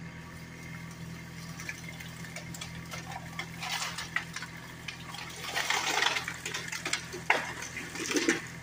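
A felled tree coming down: cracking and snapping of wood and branches that starts about a third of the way in, builds to a heavy crash past halfway, with one sharp crack and a last burst near the end. A low steady engine hum runs underneath.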